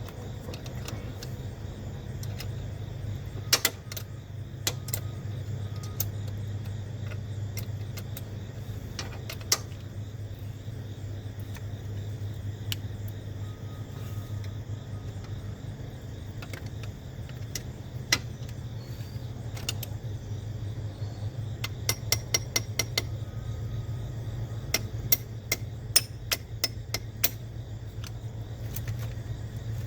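Metal hand tools clicking and clinking on car battery terminal hardware, with scattered single clicks and a few quick runs of clicks, over a steady low hum.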